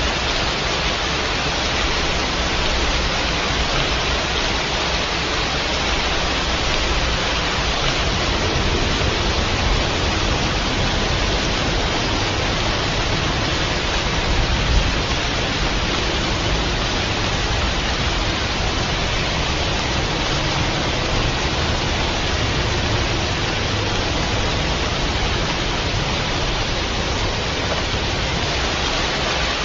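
Steady heavy rain: an even, unbroken hiss, with a deeper low rumble swelling through the middle.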